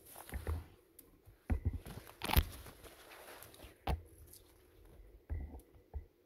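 Footsteps walking through a young spruce forest, crunching on needle litter, twigs and moss, with an irregular step about every second and a few sharper cracks, the sharpest about two and a half seconds in.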